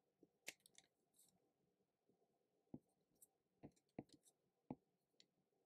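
Near silence: room tone with about five faint, sharp clicks, a stylus tapping on a tablet screen while drawing.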